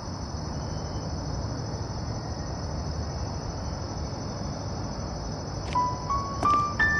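Steady high insect chirring over a low background hiss. Near the end, a few soft bell-like music notes come in one after another.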